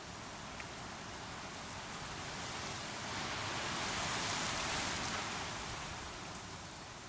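Creek water rushing, a steady hiss that swells to its loudest about four seconds in and then fades.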